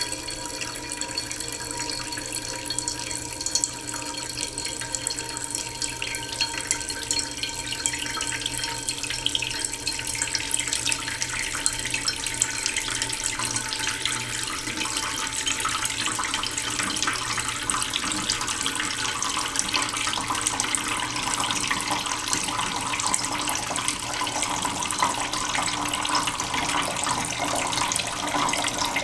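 Tap water running slowly into a cooking pot in a sink: a steady, continuous splashing that grows gradually fuller over the second half as the pot fills.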